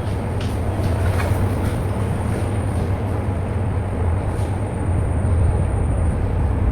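Wet vacuum cleaner running steadily: a loud, even low drone with a few faint clicks.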